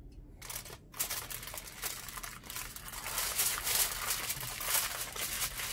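Aluminium foil crinkling and crackling as it is folded and wrapped by hand, starting about half a second in and going on in quick, irregular crackles.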